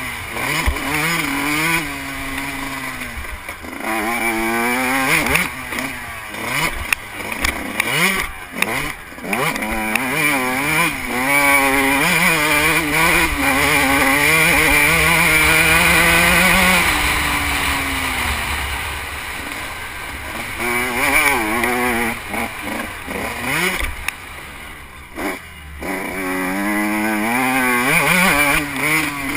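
Suzuki RM125 two-stroke motocross bike ridden on a dirt track, its engine revving up and dropping back again and again, with wind rumbling on the helmet-mounted microphone. The revs hold high for several seconds about halfway through, then fall away.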